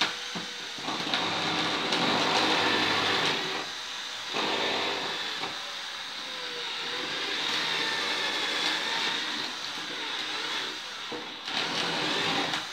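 Small battery hand drill motor whirring almost without a break, with a short pause about four seconds in.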